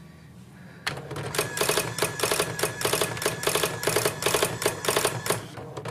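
Dot-matrix printer printing, its print head buzzing across in short repeated passes about three times a second. It starts about a second in and stops shortly before the end.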